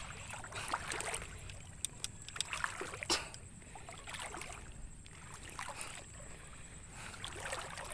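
Water sloshing and swishing irregularly as someone wades through shallow lake water thick with floating plants, with scattered small splashes and clicks.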